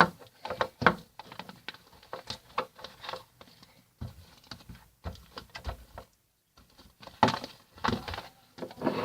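Hands working sticky slime and handling its containers: irregular small clicks, taps and soft knocks, with a brief pause partway through.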